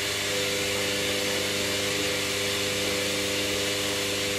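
Washing machine running with a steady whirring hum and a constant whine.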